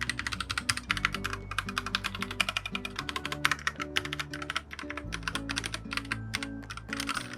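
Rapid typing on a PressPlay Rover84 mechanical keyboard: a fast, continuous run of keystroke clacks, over background music.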